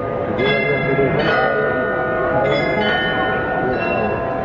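Bells of the Munich Rathaus-Glockenspiel playing a slow run of single notes, about one a second, each at a different pitch and left ringing on, over crowd chatter.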